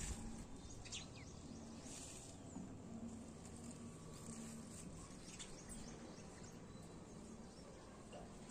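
Faint outdoor background noise in a garden, with a few soft rustles and clicks in the first couple of seconds and again about midway.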